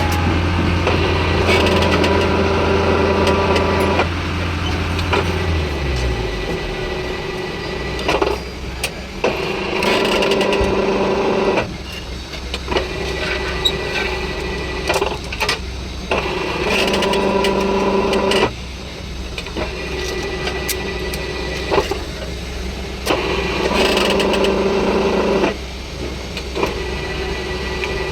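Construction machinery running with a steady mechanical hum, the sound changing abruptly every few seconds.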